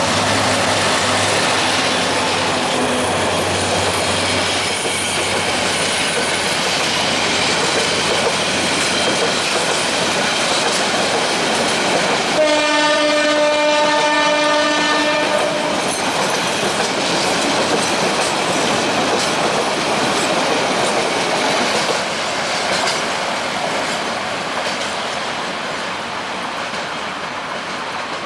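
Diesel-hauled passenger train passing close by: the locomotive's engine drones for the first few seconds as it goes past, then the coaches' wheels clatter and rumble steadily over the track. About twelve seconds in, a train horn blows one multi-tone chord for about three seconds; the clatter fades a little near the end as the last coaches move away.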